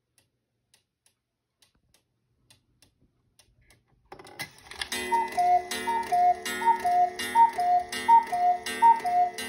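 Carved cuckoo clock ticking faintly, then, once its minute hand is turned to the hour, calling the hour: repeated two-note "cu-ckoo" calls from its bellows pipes, high then low, about every 0.7 seconds, each with a strike on the gong that rings on between calls.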